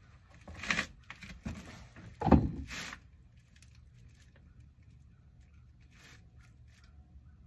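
Rustling and scraping for about two and a half seconds with one louder thump near the middle, as a person shifts and leans over on a seat while handling fishing line; then only a few faint ticks.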